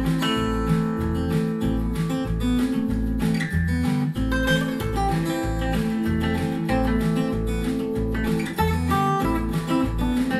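A folk track with strummed acoustic guitar and a steady bass line, played through a pair of Sharp CP-C411H bookshelf speakers and picked up by a microphone in the room.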